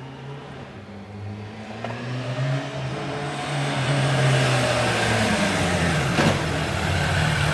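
Motorcycle engine approaching and growing louder, its note dropping as the bike slows down.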